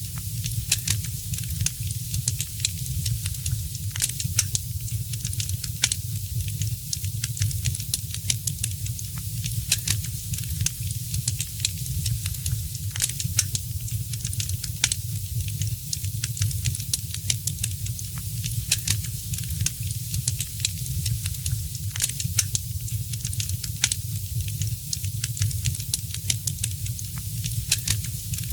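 Wood fire crackling in a fireplace: irregular sharp pops and snaps over a steady hiss and a low rumble.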